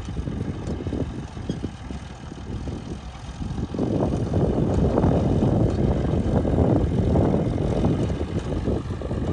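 Combine harvester running in a wheat field, heard as a rough low rumble mixed with wind on the microphone, growing louder about four seconds in.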